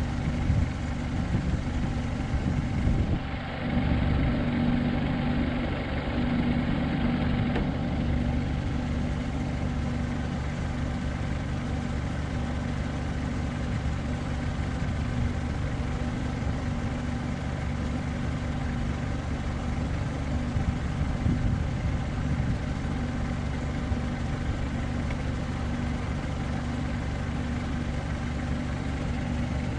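An engine idling steadily: a continuous low hum that holds the same pitch throughout.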